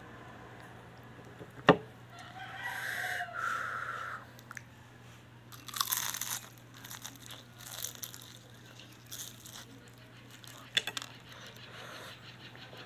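Crispy fried pork lumpia being bitten with a crunch and chewed, loudest about six seconds in, with smaller crunches later. A sharp click about two seconds in, then a drawn-out high-pitched sound.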